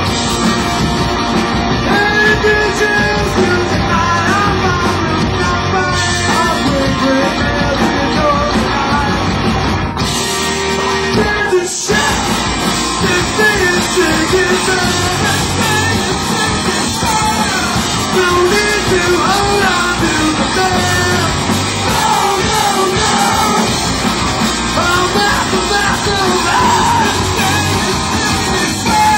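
Live rock band playing a loud song with sung vocals. About ten seconds in the low end drops out for a moment, then the full band comes back in.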